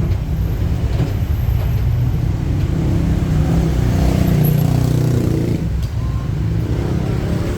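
Engine and road noise of a ride through city traffic: a steady, loud low rumble that swells slightly in the middle.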